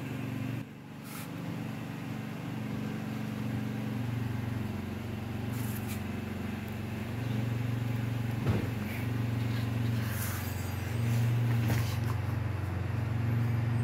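A steady low mechanical hum that swells and fades, with a few soft knocks.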